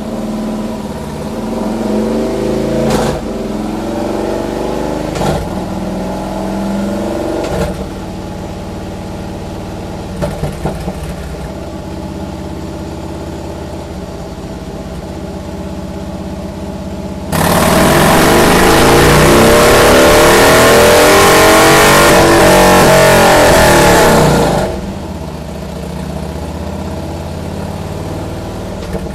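Harley-Davidson 103 cubic-inch V-twin running on a dyno, with a few throttle blips at first. About two-thirds of the way in it goes wide open for a full pull lasting about seven seconds, loud and rising in pitch, then drops back to idle. This is a dyno run to check the engine's top-end power and fuelling.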